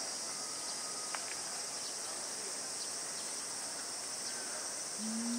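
Steady high-pitched buzzing of a summer insect chorus, with a single faint click about a second in. A low humming voice begins just before the end.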